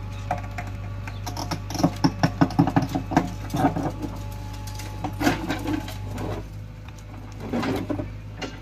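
JCB 3DX backhoe loader's diesel engine running steadily while its backhoe bucket digs into rocky soil, with a quick run of sharp knocks and scraping from the bucket against stones about two to three seconds in, and a few more clusters of clatter later.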